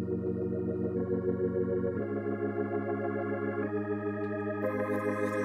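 Background music: sustained organ chords with a slight pulsing wobble, changing every second or two, joined near the end by a hissing, cymbal-like wash.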